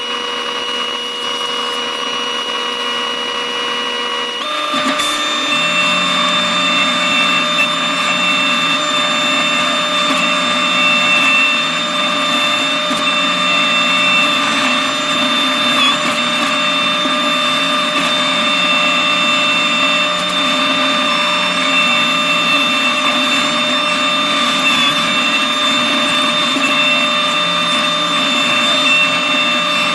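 New Holland C327 skid steer running with its McLaren RM60 forestry mulching head, a steady machine whine. About four and a half seconds in, the pitch steps up and it gets louder, then holds steady.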